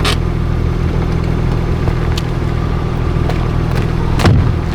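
Audi B5 S4's twin-turbo 2.7-litre V6 running steadily, a low engine drone under a haze of road and tyre noise. A few sharp knocks cut through, the loudest about four seconds in.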